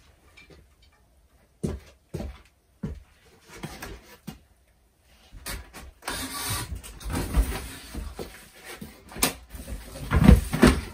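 Boards and debris being pulled out of an old wooden cupboard: a few separate knocks, then a stretch of rustling and scraping with thumps, the loudest thumps near the end.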